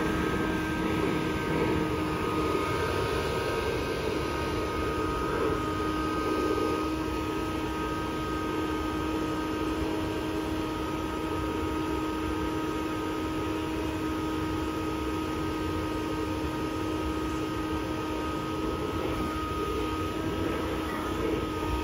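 Leaf blower running steadily with its outlet held over an inflatable pool's valve, forcing air in to inflate the vinyl chamber: a constant whine of several tones over a rush of air.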